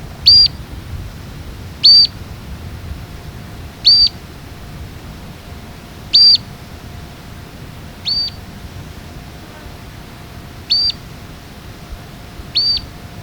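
Straight-billed earthcreeper giving sharp single call notes, seven in all, each a quick high note rising and falling, at uneven gaps of about two seconds, over a low steady rush of background noise.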